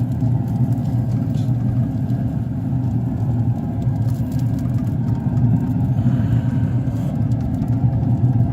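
Steady low droning rumble, unchanging, with a few faint clicks over it.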